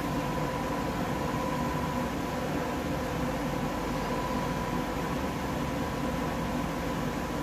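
Steady background hum and hiss with a faint constant tone, like a fan or electrical hum in a workshop; no meter beeps or other distinct events.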